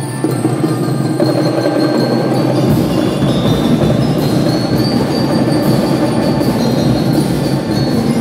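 Drum and lyre band playing live: bell lyres ring out a bright melody over a full beat of drums. The deep bass fills in about three seconds in.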